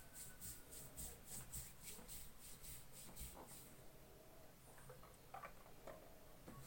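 Faint rhythmic rubbing of hands massaging skin, about four strokes a second. The strokes stop about halfway through, and a few light clicks follow.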